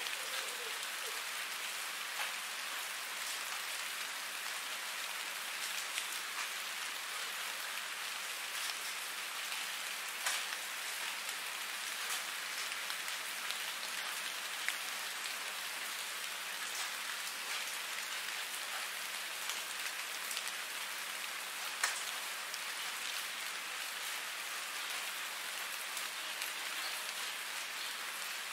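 Steady rain falling, an even hiss with scattered louder drop taps.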